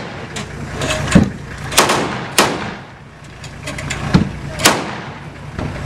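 Armoured vehicle's engine running steadily, with several sharp gunshots cracking over it, the loudest about one, two, two and a half, four and four and a half seconds in.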